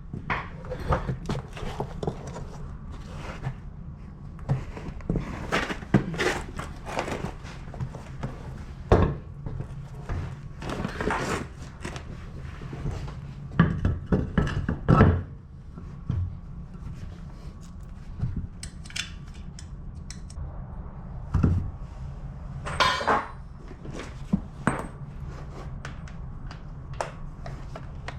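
Scattered metal clinks and knocks as a UTV wheel is fitted onto its hub and the lug nuts are handled, over a steady low hum.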